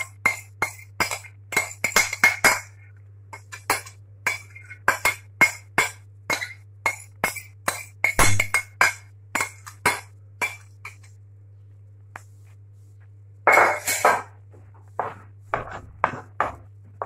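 Wooden spoon knocking and scraping against a frying pan while chopped onions are stirred. There are quick irregular clacks at a few per second, a pause, then one longer scrape followed by a few more knocks.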